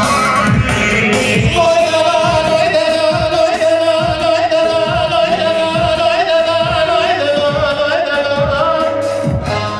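Loud halay dance music: a singer holding long, wavering notes over a steady drum beat of about two strikes a second.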